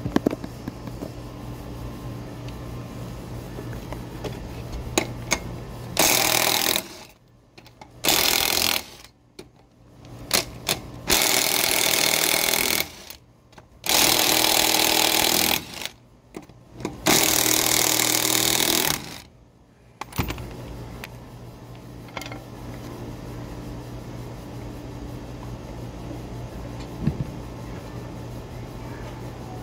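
Cordless WORX impact wrench hammering the lug nuts loose on a Ford F-150's front wheel, in about five bursts of one to two seconds each between roughly 6 and 20 seconds in. A low steady hum runs underneath before and after.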